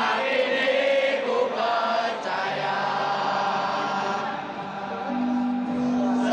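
Crowd of football supporters chanting together in the stands, a mass of voices singing long held notes.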